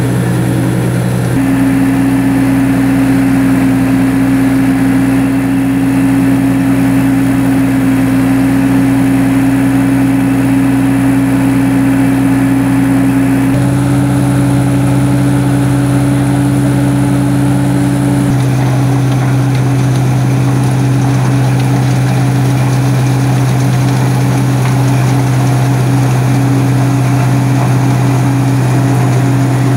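Tractor engine running steadily under load, driving the PTO-powered rotor of a Menta Giromix silage unloader wagon as it cuts silage from the pile, with a dense churning noise over the engine hum. The engine pitch shifts abruptly a few times.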